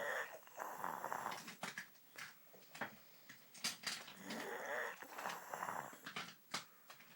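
Snoring from someone fast asleep: two long, rough snores about four seconds apart, with quieter breathing between.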